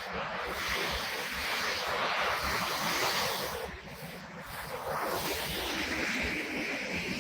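Steady rushing water of a waterfall, heard as an even hiss that dips briefly about four seconds in, with gusts of wind buffeting the microphone underneath.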